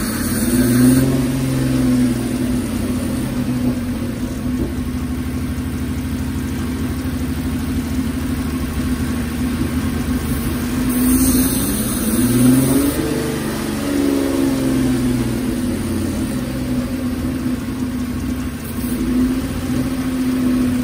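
Toyota V6 engine idling steadily and revved up and back down twice: a short blip about a second in and a longer rise and fall about two-thirds of the way through.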